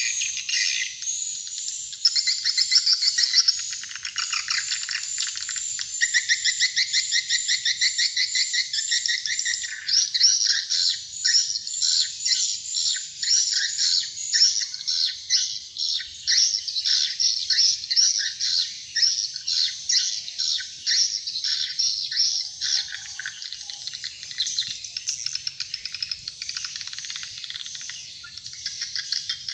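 Swiftlet calls: dense, rapid trains of high chirps, played as a lure sound through horn speakers on the roof of a swiftlet house.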